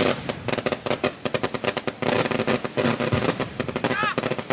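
A string of firecrackers going off in a rapid, irregular crackle of many small bangs.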